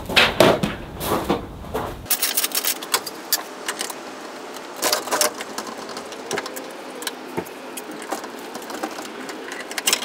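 Footsteps on a gravel floor and a metal stepladder being set down, then irregular clicks and taps of hands working on the plastic housing of a ceiling-mounted garage door opener.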